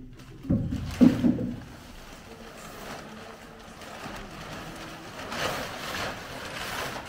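A large plastic sheet rustling and swishing as it is pulled off a roll and spread out by hand, with two dull thumps about half a second and one second in.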